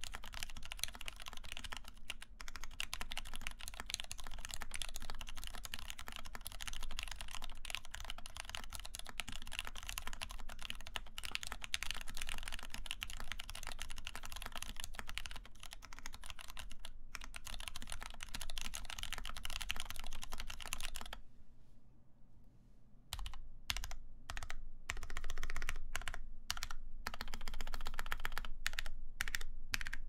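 Typing on a compact, top-mounted aluminium-plate Dalco 959 Mini mechanical keyboard with lubed Cherry Hirose Orange switches and Cherry-profile keycaps: a quick, continuous clatter of keystrokes. It stops briefly about two-thirds of the way in, then resumes as shorter runs of keypresses with short gaps between them.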